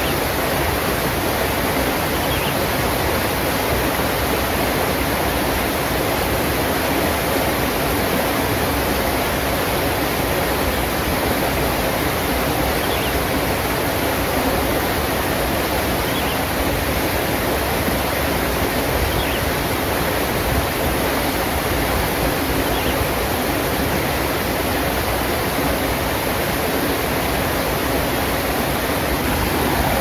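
Shallow rocky stream rushing over boulders and a small cascade: a steady, unbroken rush of water.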